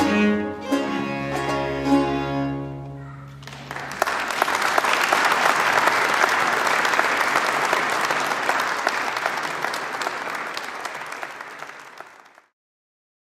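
Baroque string ensemble with violin playing the last bars of a piece, ending about three and a half seconds in. Audience applause follows and fades out near the end.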